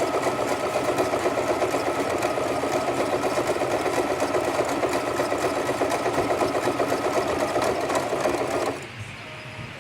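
Sewing machine stitching steadily through a doubled hair weft track, then stopping near the end.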